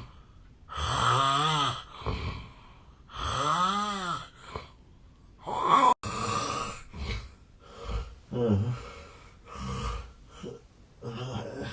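A man snoring heavily in deep sleep: two long, loud, buzzing snores a couple of seconds apart, then, after an abrupt cut, a run of shorter, quieter, uneven snores and breaths about once a second. The sleeper suspects a long-standing sleep disorder behind the loud snoring.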